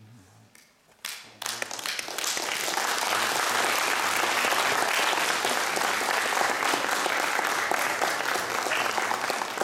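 Audience applauding: a few first claps about a second in, quickly swelling into full, steady applause.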